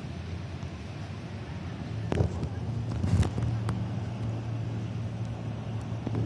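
A motor vehicle running with a steady low engine hum, with a few sharp knocks about two and three seconds in.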